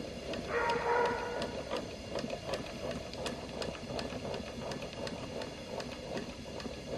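Faint, steady mechanical ticking, about three evenly spaced ticks a second, over a low hum.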